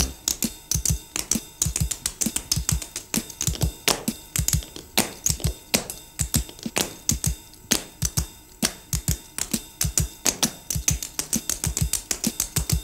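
Tap dancing: tap shoes clicking rapidly and irregularly on a hard stage floor in a dance break.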